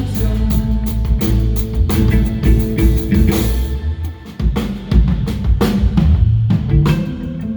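Live band playing an instrumental passage: a drum kit keeps the beat over bass and guitar. The band drops back briefly about four seconds in, then the drums come back in hard.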